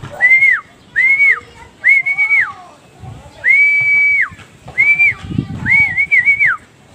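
A man whistling a string of short clear notes, about six, each jumping up, holding briefly and dropping off, with one held longer about halfway through: a pigeon keeper's whistle call to coax a late-returning racing pigeon down into the loft.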